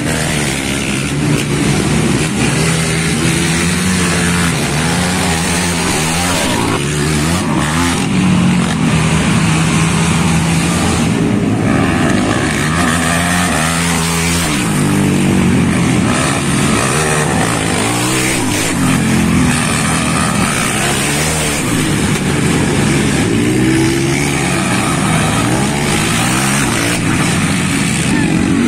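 Racing ATVs (quad bikes) revving hard on a dirt track, engine pitch climbing and dropping over and over with the throttle.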